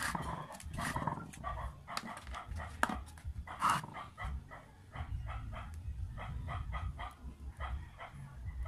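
A dog barking in quick series of short barks, about three to four a second in places, over low knocking and rubbing of hands handling a small electric water pump and its cord.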